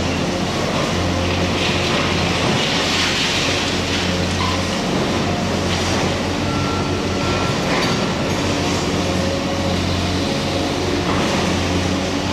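Diesel engines of hydraulic excavators running with a steady low drone while they work a pile of demolition rubble, with occasional knocks of concrete and steel debris and a brief high squeal partway through.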